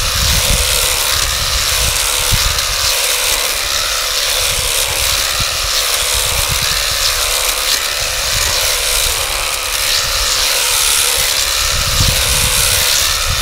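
Makita cordless battery hedge trimmer running steadily, its reciprocating blades cutting through a leafy hedge, with irregular low rumbles underneath.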